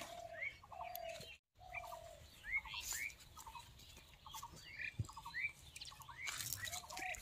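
Birds calling over and over: short rising chirps, quick clusters of notes and a lower whistled note. Leaves rustle now and then, briefly crackling.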